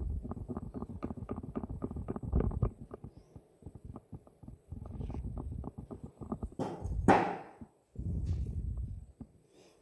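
Timemore Chestnut Slim manual hand grinder with titanium-coated burrs crushing whole coffee beans as the handle is turned: fast crackling crunches in spells with short pauses, and one sharp clink about seven seconds in.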